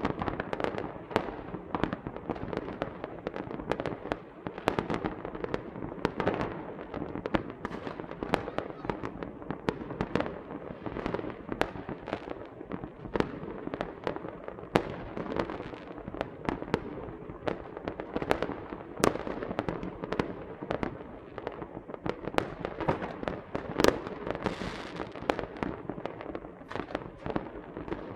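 Small fireworks and firecrackers going off nonstop: irregular sharp pops and bangs, several a second, over a continuous crackle.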